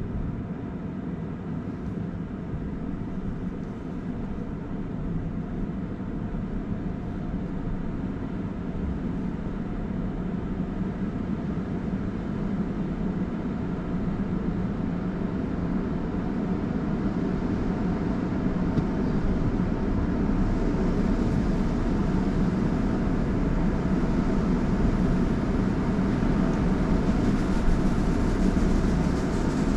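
Automatic car wash machinery heard from inside a car's cabin: a steady low running noise that grows louder as the car moves into the tunnel. Near the end, water spray hitting the windshield adds a hiss.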